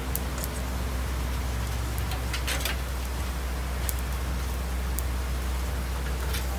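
Charcoal satay grill hissing steadily over a constant low rumble, with scattered sharp ticks through it.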